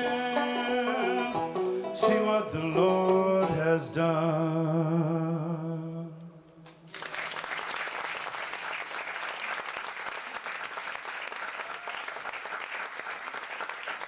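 A man sings the closing notes of a gospel song, held and wavering, over a gourd banjo; they die away about six seconds in. About seven seconds in, audience applause starts and runs on steadily.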